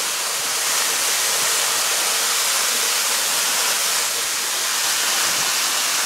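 Shiratama Falls: a steady, even rush of falling water close by.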